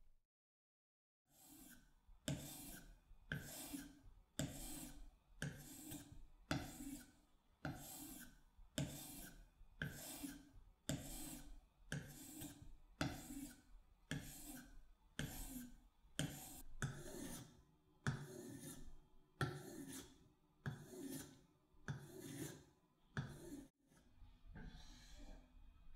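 A knife being sharpened: the blade scraped in even, regular strokes about once a second, starting about a second in.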